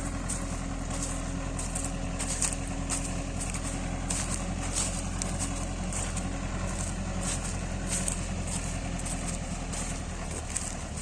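Tractor engine running steadily while corn-harvesting machinery works, with frequent irregular rattling and clattering over the engine.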